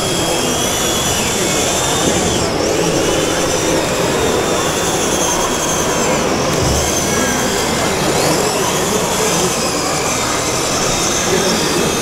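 High-pitched whine of the small electric drive motors and gearboxes of 1/14-scale RC crawler bulldozers, rising and falling in pitch as they drive and push dirt, over the steady hubbub of a crowded exhibition hall.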